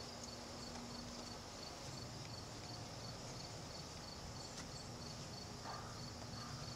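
Faint room hiss with a cricket chirping steadily, a thin high pulse repeating about four times a second.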